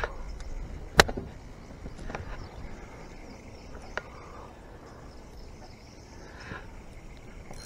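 A few sharp clicks from handling a fishing rod and reel, the loudest about a second in and smaller ones near two and four seconds, over faint outdoor background.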